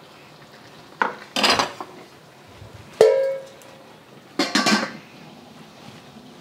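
Metal cookware and utensils clattering in three short bursts: a clatter about a second in, a sharp ringing metal clang near the middle, and another clatter soon after.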